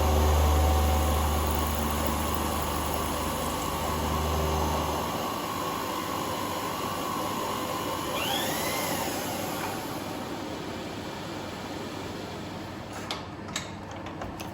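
Manual milling machine making a cut under power feed. A strong low hum over the first five seconds stops, a steady tone from the spindle carries on, there is a brief rising-and-falling whine about eight seconds in, and a few sharp clicks come near the end.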